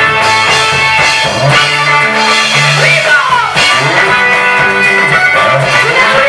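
Music from a Swahili gospel song, with guitar playing in it.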